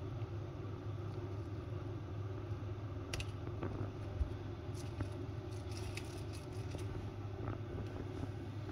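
A metal ring cutter pressed through mashed potato on a plastic sheet, with a few faint clicks and rustles as the cutlets are cut and lifted, over a steady low hum.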